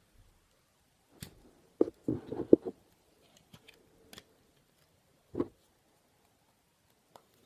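Scattered handling clicks and knocks: a cluster of several about two seconds in, a single knock a few seconds later, and a faint click near the end.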